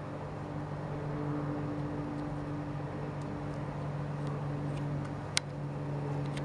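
Steady low mechanical hum with two held low tones, and one sharp click about five seconds in.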